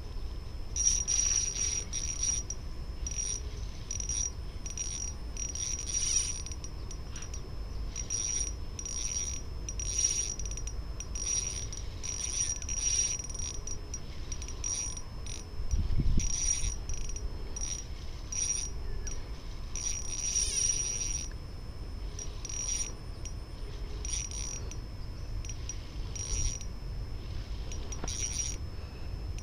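High-pitched chirping calls of waterside insects or frogs, pulsing in short bursts about every half-second to a second, over a steady low wind rumble, with one dull thump about halfway through.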